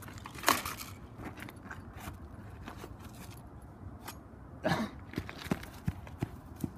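A person moving about on grass: scattered crunching, rustling and clicking steps and handling noise. Two louder rushes come about half a second in and near five seconds in.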